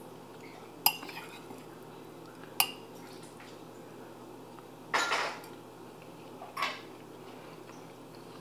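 A metal spoon clinking and scraping against a ceramic bowl of fried rice as a spoonful is scooped. There are two sharp clinks in the first three seconds, then a longer scrape about five seconds in and a short one after it.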